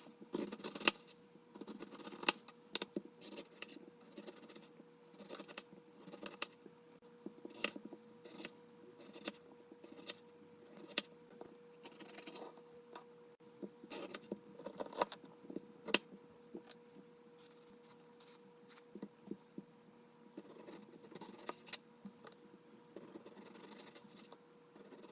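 Knife cutting vegetables on a chopping board: irregular sharp knocks and scrapes of the blade against the board, a few of them loud. A faint steady hum runs underneath.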